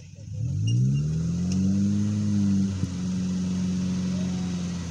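Off-road SUV's engine revving up about half a second in and held at high revs, dipping briefly near the middle and then running steadily.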